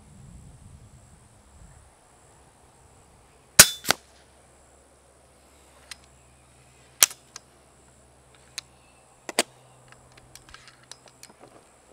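FX Impact X .25 regulated PCP air rifle firing one shot: a single sharp crack, with a second, quieter crack about a third of a second later. Then a few separate sharp clicks and a run of small clicks as the side lever is worked to cock the rifle and load the next pellet.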